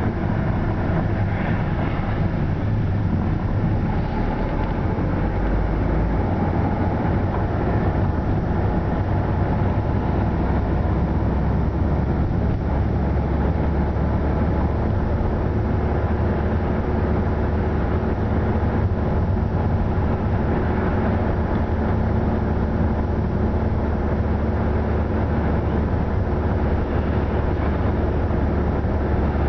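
A car driving, heard from inside the cabin: steady engine and tyre noise, a continuous low rumble.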